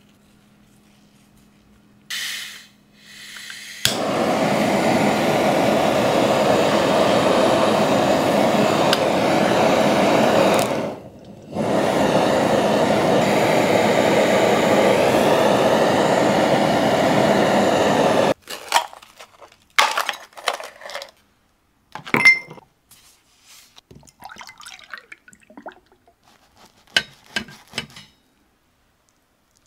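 Handheld butane kitchen torch burning with a loud, steady hiss as its flame caramelises sugar on halved bananas. A brief hiss about two seconds in comes before the flame runs in full. The flame cuts out for a moment about eleven seconds in, resumes, and stops about eighteen seconds in, after which there are a few light clicks.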